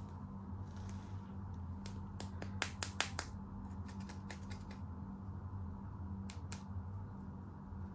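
Small plastic animal toys being handled, giving light, irregular clicks and taps, with a quick run of them about two and a half to three seconds in, over a low steady hum.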